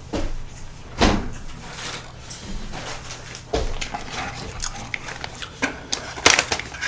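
A couple of dull knocks, then a plastic pouch of seasoned seaweed flakes crinkling as it is torn open near the end.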